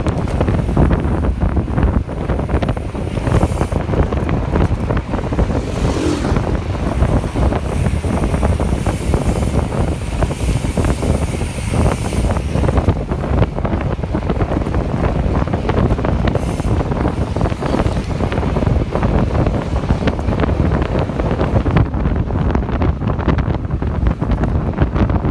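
Wind buffeting the microphone: a loud, steady low rush of rumbling noise with no break.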